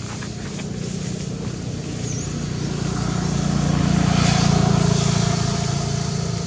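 A motor vehicle driving past: a steady low engine drone that grows louder towards the middle and then begins to fade.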